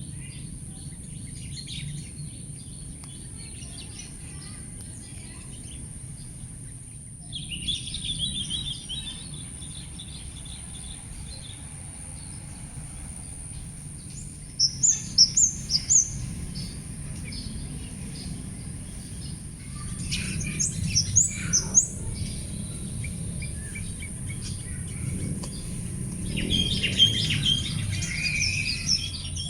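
Birds chirping and calling in short bursts of high, quick notes, a few times, louder near the end, over a steady high-pitched hiss and a low background rumble.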